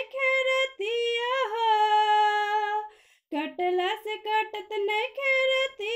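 A woman singing a Bhojpuri song unaccompanied, holding a long note from about one to three seconds in. A brief breath pause about halfway, then the sung melody goes on.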